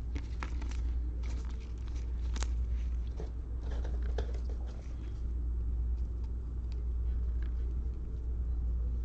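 Trading cards being handled, with faint scattered clicks and rustles over a steady low hum; the handling fades out about halfway through.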